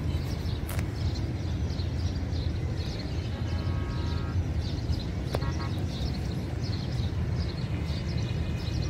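Steady low outdoor rumble with birds chirping faintly over it, and a faint tone lasting about a second near the middle.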